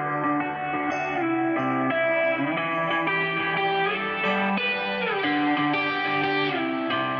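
Music: sustained guitar notes with sliding bends over a steady low bass line.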